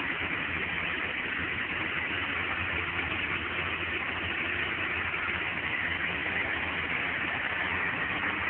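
1999 Polaris XLT snowmobile's three-cylinder two-stroke engine running steadily at idle; the engine has a broken piston skirt.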